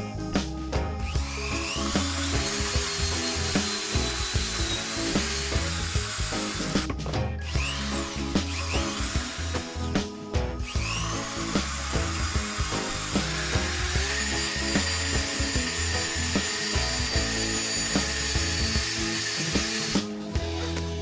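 A small electric power tool spinning up with a rising whine and running steadily, stopping about 7 seconds in, giving a short burst, then running again for about ten seconds before stopping near the end. Background music with a steady beat runs underneath.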